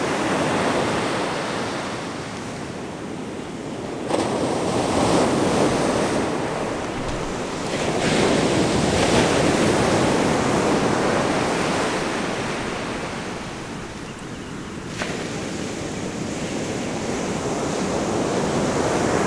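Ocean surf breaking on a sandy beach, a steady wash of noise that swells and eases with the waves, with sudden jumps in level about four, eight and fifteen seconds in.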